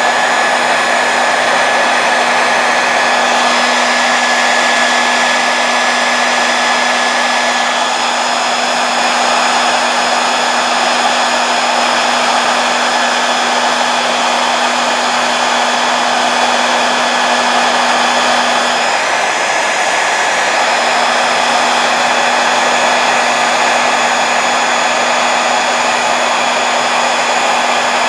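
Handheld hair dryer running steadily, blowing hot air onto a motorcycle fuel tank to soften a sticker's glue: a constant rush of air with a low motor hum and a thin whine.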